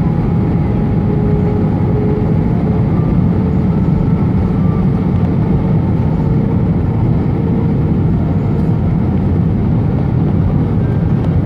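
Steady low rumble of engine and airflow noise inside an Airbus A320's cabin as it descends on approach, with a few faint steady tones over it.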